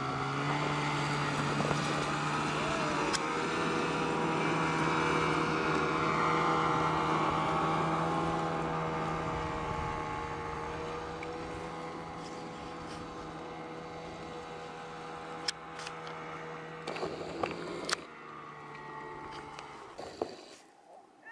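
Snowmobile engine running steadily while towing a skier. It grows louder over the first several seconds, then slowly fades and drops away near the end, where a few knocks are heard.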